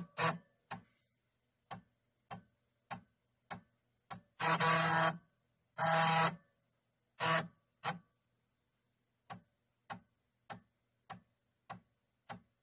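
Mechanical clicking from a 1986 IBM PC Convertible laptop: short clicks evenly spaced, a little under two a second, with two longer buzzes about four and a half and six seconds in.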